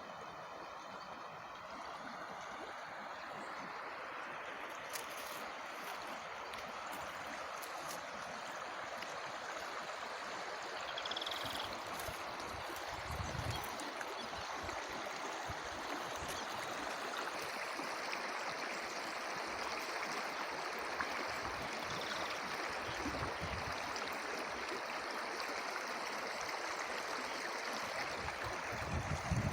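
Stream water running steadily, an even rushing and gurgling that grows slightly louder, with a couple of brief high chirps.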